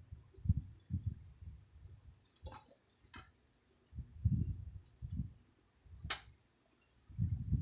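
A sleeping woman snoring softly in short low rumbles, with three sharp clicks in between.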